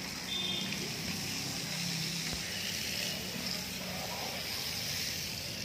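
Steady outdoor background noise with faint voices.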